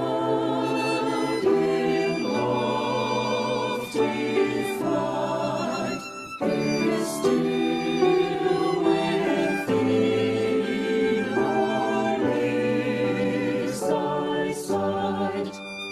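A choir singing a slow hymn, holding long notes with vibrato and pausing briefly about six seconds in and again near the end.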